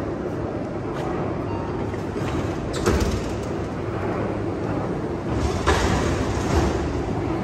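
Steady low rumble of a commuter-rail station concourse. About three seconds in, a sharp click comes as a travel card is held to a ticket gate's reader, and a louder rushing stretch with a few knocks follows near the end.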